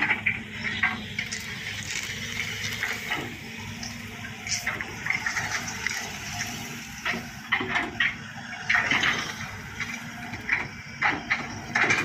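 Sany SY135C hydraulic excavator's diesel engine running steadily under load, with repeated crackling and snapping of dry brush and cane stalks as its bucket pushes and rakes through them, in irregular bursts.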